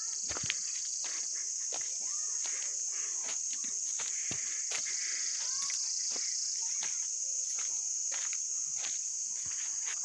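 Steady high-pitched chorus of insects buzzing in a pine forest, with scattered soft clicks and knocks throughout.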